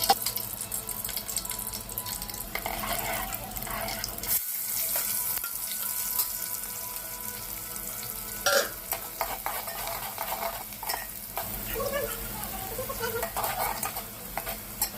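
Chicken curry frying and sizzling in hot oil in a pan while it is stirred, with a spoon scraping and clinking against the pan. There is a louder knock about eight and a half seconds in.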